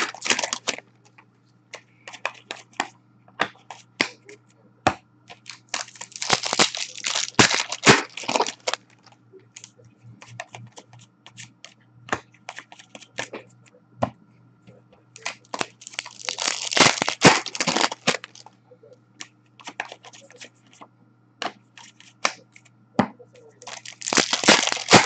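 2019-20 Upper Deck Series 1 hockey card packs being torn open and crinkled by hand, in three bursts of wrapper crackle several seconds apart. Light clicks and taps of cards being handled and set down fall in between, over a faint steady low hum.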